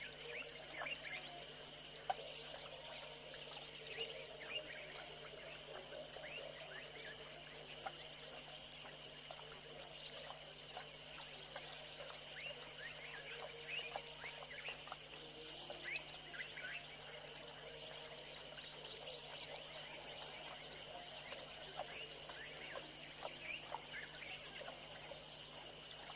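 Evening insect chorus: crickets trilling steadily in two high pitches, with short scattered chirps over it and a faint low steady hum underneath. One sharp click about two seconds in.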